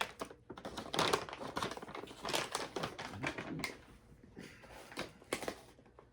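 Plastic snack bag of Mother's cookies crinkling as it is opened and rummaged through, an irregular run of crackles that thins out in the second half.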